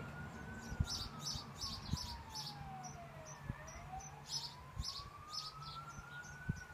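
Fire truck siren in a slow wail: its pitch falls for about three seconds, then rises again to the top. Rapid high chirps repeat over it, about three a second.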